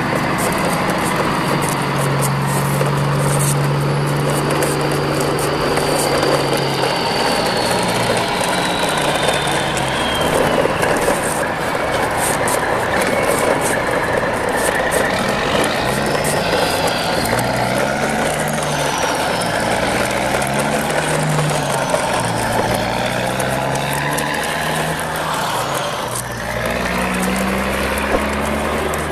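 Heavy truck engine sound running, its low pitch stepping up and down, over a steady rumbling noise.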